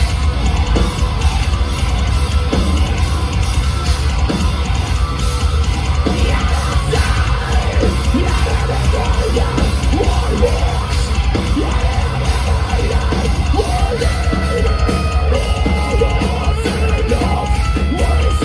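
A progressive metalcore band playing live at full volume, with heavy guitars, bass and drums and screamed vocals, heard from within the crowd in a concert hall. The full band comes in suddenly right at the start.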